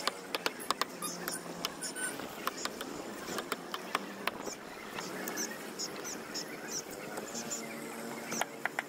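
Knife cutting tuna on a wooden block, the blade knocking against the wood in sharp, irregular taps that are thickest in the first two seconds and again near the end.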